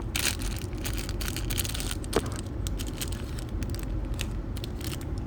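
Irregular crinkling and crackling from handling squishy toys and their plastic packaging, over a steady low hum.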